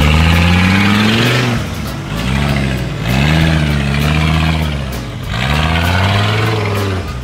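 Off-road rock-crawler buggy's engine revving in about three surges, the pitch climbing and dropping back each time, as the buggy works its way up over rocks under load.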